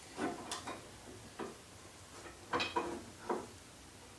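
Steel pipe clamp being handled and positioned on a wooden table top: a series of light, irregular clicks and knocks of the pipe and sliding jaw against the wood.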